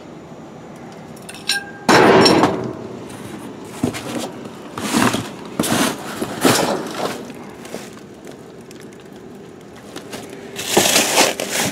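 Cardboard boxes and junk being shifted and rummaged through inside a dumpster. There is a loud crash about two seconds in, then a string of scrapes and knocks, and another burst of handling noise near the end.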